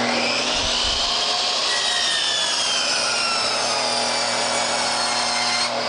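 Electric compound miter saw running, its spinning blade cutting through a wooden board. Near the end the trigger is released and the blade starts to wind down with a falling whine.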